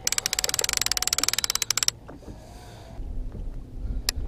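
Fishing reel's clicker ratcheting in a fast run of clicks that stops about two seconds in, with one sharp click near the end, as a musky runs with a live sucker bait on the line.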